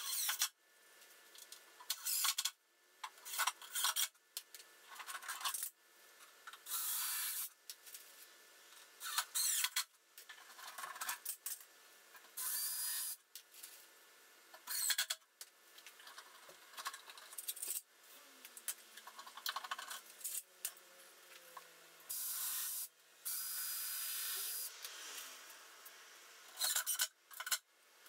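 Cordless drill/driver driving screws into plywood panels, in a string of short bursts that start and stop abruptly.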